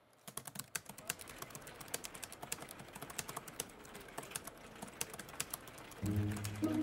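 Rapid, irregular computer-keyboard typing, many quick key clicks. Near the end a low steady tone comes in.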